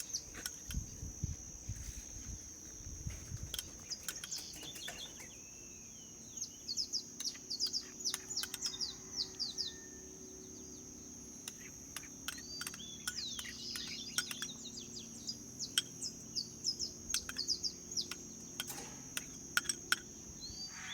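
Birds chirping and calling in quick runs of short notes over a steady high-pitched whine, with scattered light clicks.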